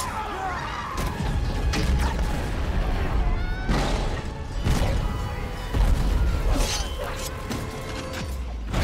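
Film battle soundtrack: music under a heavy low rumble, with crashes and booms about once a second.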